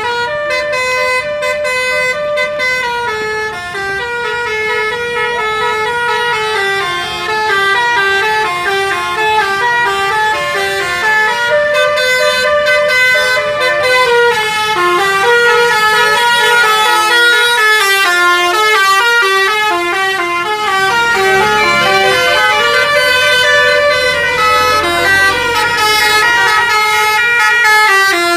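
Tour buses' multi-tone musical "telolet" air horns playing a continuous tune of quick stepped notes as the coaches pass, growing louder over the first half.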